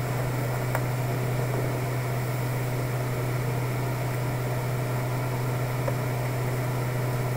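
Steady low hum with an even hiss over it, unchanging throughout, heard over a video-call audio line.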